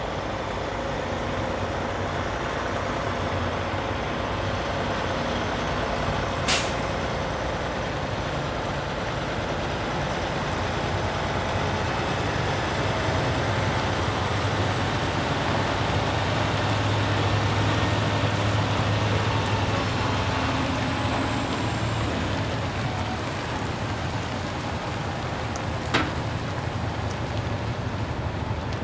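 Heavy-haul diesel semi-tractors running steadily under load, a low engine drone mixed with road noise that swells somewhat in the middle. Two brief sharp clicks, about six seconds in and near the end.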